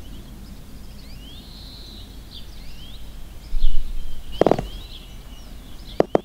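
Birds chirping faintly in the background, with a low bump and then a single sharp knock of wooden sticks being handled a little past the middle. At the very end, a small hammer begins tapping a thin wooden post in quick even strokes.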